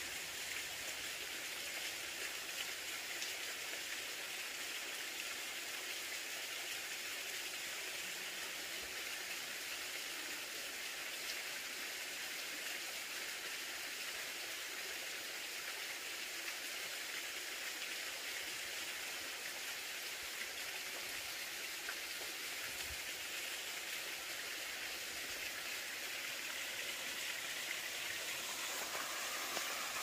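Steady rushing of flowing water from a stream, an even hiss without change.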